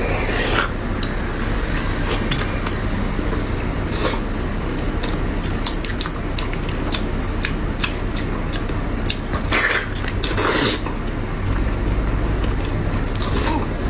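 Close-miked eating: chewing with many short wet clicks and a few louder bites, near the start, about four seconds in, around ten seconds and near the end. A low hum underneath grows louder near the end.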